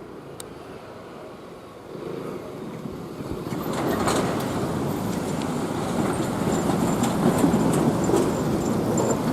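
Kintetsu electric train approaching and passing at a level crossing: the rumble grows from about two seconds in and becomes a loud, steady run of wheel and rail noise with scattered clicks and a faint high whine.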